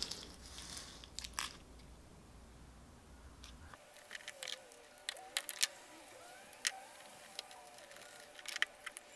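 Faint crackles and ticks of butyl tape being handled: its paper backing is peeled off and the tape is pressed onto the plastic housing of a solar cable entry gland. The ticks come thicker after about four seconds, when a low hum stops.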